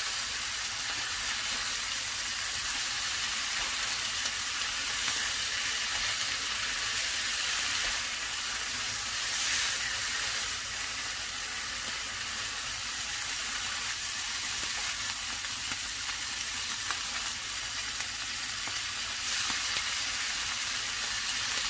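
Bracken fern (gosari) stir-frying in a pan, sizzling steadily as it is stirred, with a few brief louder swells of sizzle.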